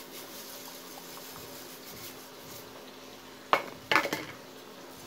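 A steel spoon clanks twice against a steel pan about three and a half seconds in, over a faint steady hiss from the simmering semolina halwa mixture.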